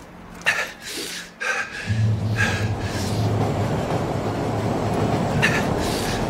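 A few sharp cracks, then a heavy low rumble that sets in about two seconds in and holds steady, with more cracks near the end.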